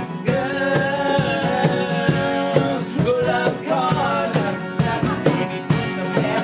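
Rock and roll song: a sung vocal line over guitar and a steady drum beat.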